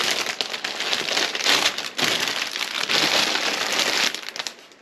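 Cellophane and plastic flower-bouquet wrappings crinkling and rustling as the bouquets are handled, dying away near the end.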